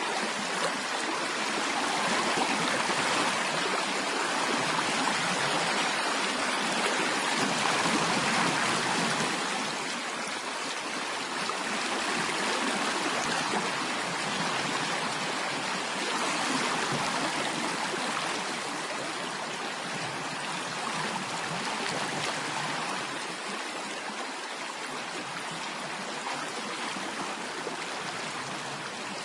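Steady rushing and splashing of flowing stream water, continuous and even, easing a little in loudness after the first ten seconds or so.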